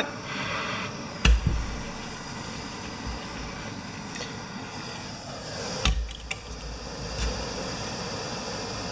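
Two sharp knocks of a metal cable end and tools being handled on a workbench, one about a second in and one near six seconds, with a lighter knock after it, over a steady background hiss.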